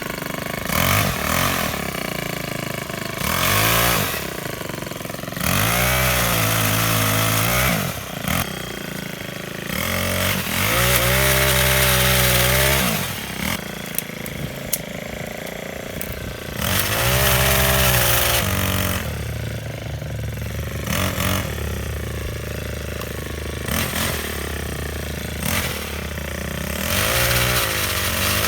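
Ryobi four-stroke string-trimmer engine driving a 12-inch chainsaw attachment, idling between repeated throttle-ups. About six times it revs up, holds at high speed for one to three seconds, and drops back to idle.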